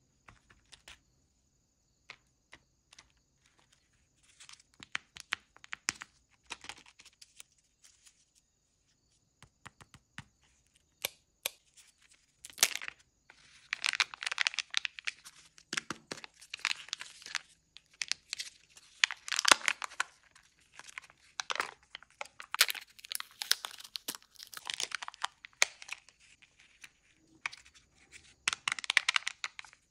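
Sparse light clicks and short crinkles of plastic Kinder Joy egg packaging being handled, then, from about twelve seconds in, the foil-lined seal being peeled and torn off the plastic egg halves in repeated bursts of loud crinkling and tearing.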